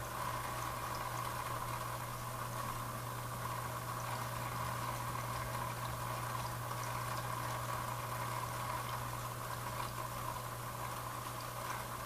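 Aquarium filter running: a steady bubbling of water over a constant low hum.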